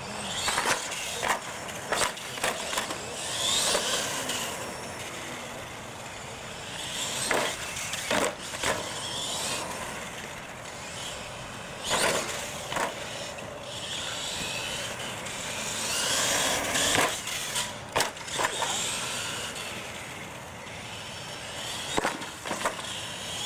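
Radio-controlled monster truck driving on concrete: its motor and gears whine, rising and falling as it speeds up and slows. Sharp knocks and clatters come throughout as it hits the wooden ramps and lands.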